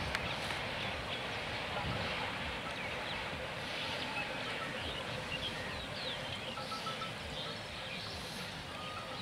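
Steady outdoor background noise with scattered faint bird chirps.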